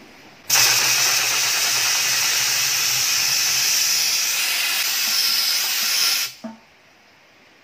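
Compressed-air blow gun blasting air through a split in a garden hose, the jet sucking rust and sand up out of a generator's fuel tank and out the top of the hose. It is a loud, steady hiss that starts about half a second in and stops abruptly about six seconds in.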